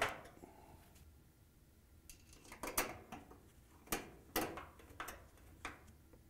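Phillips screwdriver turning screws into a metal dryer door hinge: a scatter of faint, short metallic clicks and scrapes.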